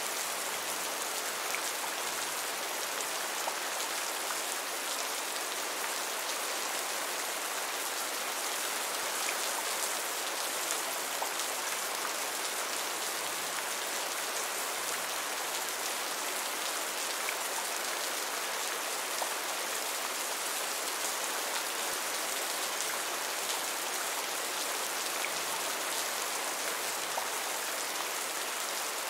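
Heavy rain falling steadily: an even hiss of countless drops that keeps up without a break.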